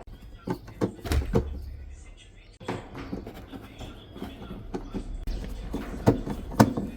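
Consul 11 kg washing machine in its spin cycle, with a steady low rumble and repeated, irregular knocks and bangs: the abnormal spin noise.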